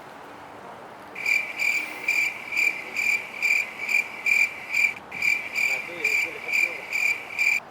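A cricket chirping at a steady, even pace of about two high-pitched chirps a second. It starts about a second in and cuts off abruptly near the end.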